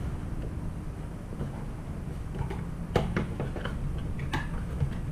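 Small cardboard box being opened by hand: a few light taps and clicks of card and contents being handled, the sharpest about three seconds in.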